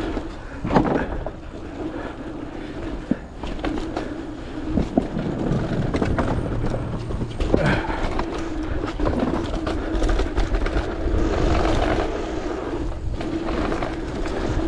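Mountain bike rolling fast down a packed-dirt trail: tyres rumbling over the ground with a steady hum, and scattered knocks and rattles from the bike over bumps.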